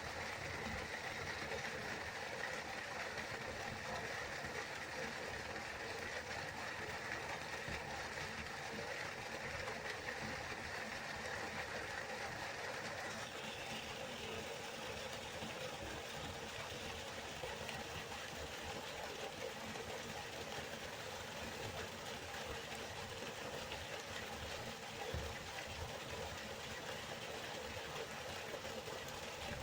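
Waterfall, water falling and rushing in a steady, continuous hiss; its tone shifts slightly about halfway through.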